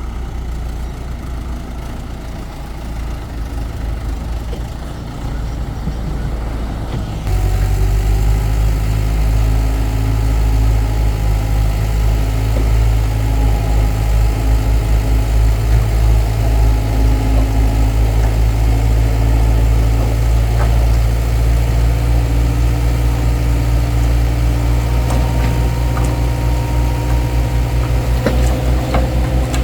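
Heavy machine's engine running steadily with a low, even hum, louder from about seven seconds in, with a few light knocks in the second half.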